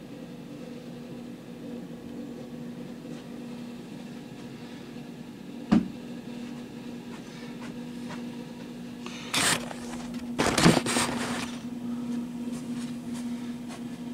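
Handling noises close to the microphone over a steady low hum: one sharp knock about six seconds in, then a few seconds of rustling and scraping as things are moved and the camera is shifted.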